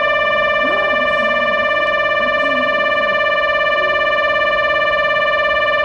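A loud, steady electronic tone with strong overtones and a slight regular warble, held unchanged throughout, over faint voices.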